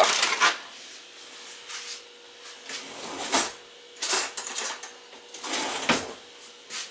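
Roasting pan and kitchen utensils being handled: a handful of short, separate scrapes and clatters at uneven intervals, the loudest right at the start and near the end, over a faint steady hum.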